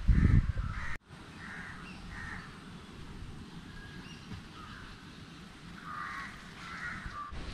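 Crows cawing repeatedly, a string of short calls over a steady low background, after a loud low rumble in the first second.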